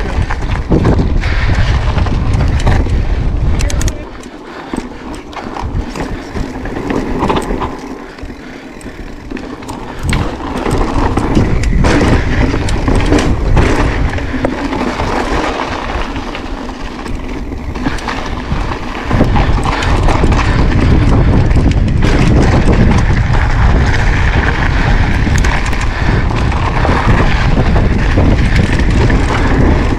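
Mountain bike being ridden over sandy trail and sandstone slickrock: tyres crunching, with the bike clattering and knocking over bumps. Heavy wind buffets the handlebar camera's microphone, easing for a few seconds about four seconds in before building again.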